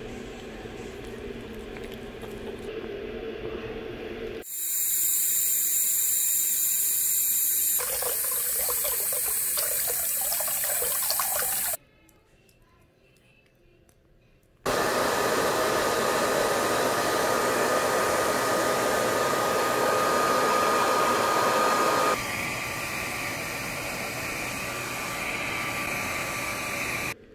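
Tap water running into a bathroom sink for several seconds. After a short silence, a hair dryer runs steadily, a little quieter for the last few seconds.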